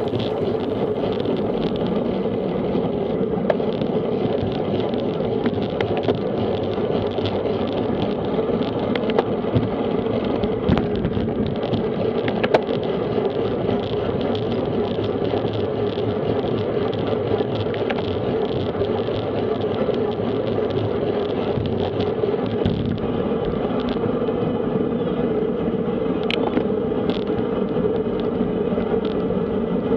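Steady rush of wind over a bike-mounted action camera's microphone, mixed with tyre and road noise from a road bike riding fast in a racing pack. Scattered light clicks and knocks from the bike running over the road surface.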